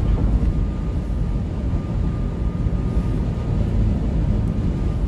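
Car cruising on a highway, heard from inside the cabin: a steady low rumble of road and wind noise, with a faint thin high tone over it.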